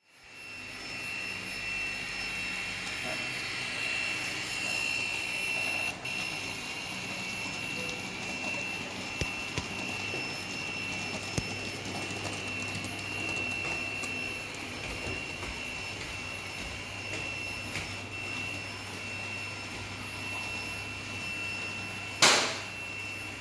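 Digital sound decoder of an N scale Renfe 333 diesel locomotive model running its diesel engine sound through a tiny speaker, a steady run with a constant high whine over a low hum. A single sharp knock comes near the end.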